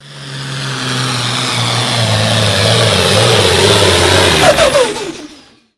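Pulling tractor's engine running hard at high power, loud, with a strong rushing exhaust noise over a steady low drone. About four and a half seconds in its pitch falls away as the engine winds down, and the sound fades out.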